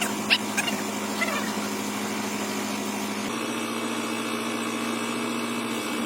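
Steady mechanical hum of a running machine or engine, with a few short sharp sounds in the first second and a half. The hum changes tone a little about three seconds in.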